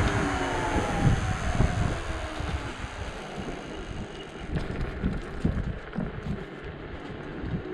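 Dualtron Thunder electric scooter riding along: wind buffeting the microphone and rumbling tyre noise on the road. In the first second or so the hub motors' whine falls in pitch as the scooter eases off.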